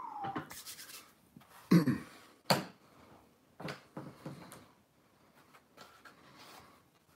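Handling noise close to the microphone: a handful of knocks and rustles, the loudest a thump about two seconds in, quieter after about five seconds.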